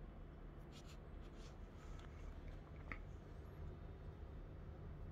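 Quiet room tone: a steady low hum with a few faint clicks and taps in the first half and a faint short squeak about three seconds in.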